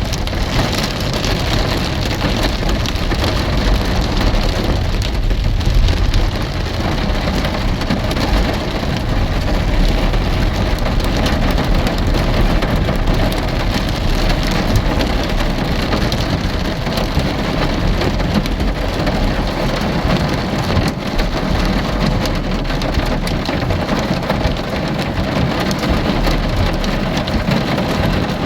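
Steady rain falling, an even hiss with a constant low rumble underneath.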